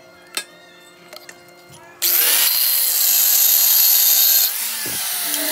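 Handheld angle grinder starting suddenly about two seconds in and grinding a welded steel joint, a loud, high-pitched grinding noise. It eases a little about two seconds later but keeps running.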